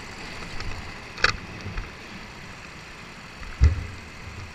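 Steady low hum of a go-kart pit area, with a sharp clack a little over a second in and a heavy, deep thump about three and a half seconds in as the kart's driver climbs out.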